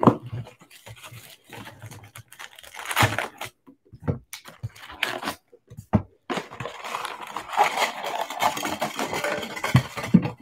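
Hands handling an opened trading-card box: the cellophane wrapper crinkling and cardboard knocking, then foil card packs being pulled out and stacked, turning into a steady crinkly rustle of packs over the last four seconds.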